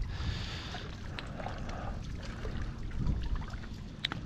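Shallow water lapping against a steady low rumble, with faint knocks and one sharp click a little after four seconds as a person climbs onto mangrove branches.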